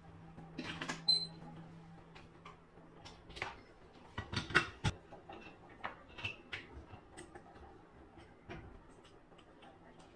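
Scattered small metal clicks and clinks of a hex key, propeller nut and washer being worked loose and set down, with a cluster of taps about four to five seconds in.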